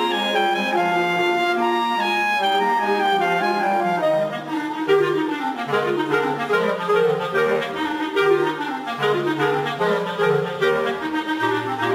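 Clarinet quintet playing live: several clarinets with a bass clarinet taking the low line. Held chords for the first few seconds give way to quicker moving lines over changing bass notes.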